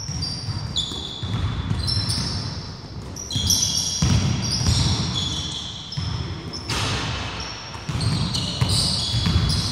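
Basketball bouncing on a wooden gym floor during play, with many short high-pitched sneaker squeaks as players cut and stop.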